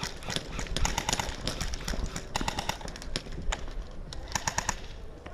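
Airsoft guns firing in rapid bursts, each a quick string of sharp clicking shots lasting about half a second, several bursts with short gaps, over wind rumble on the microphone.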